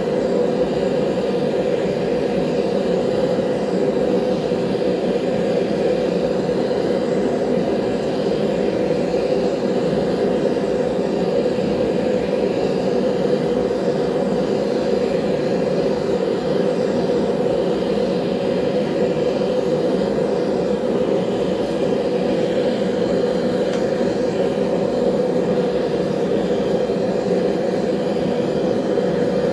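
Forge running with a steady, unchanging deep rush, holding knife blades at heat for annealing.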